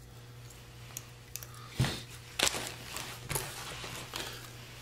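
A hand rummaging inside a backpack: rustling and soft knocks as items are handled, with several louder bumps about two, two and a half and three and a half seconds in.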